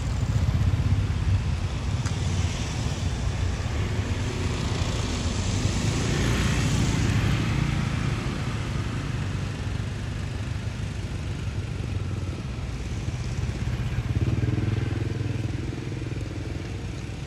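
Steady low rumble of a running motor vehicle, with a broad swell about six seconds in as one passes close by.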